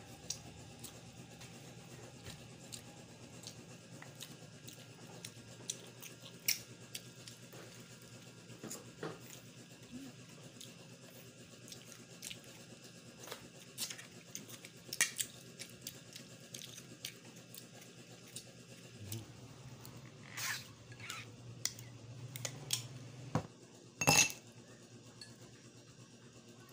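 Scattered light clinks of a spoon and fingers against ceramic plates and a glass dish during a meal at a table, over a faint low hum. A louder glassy clink comes near the end.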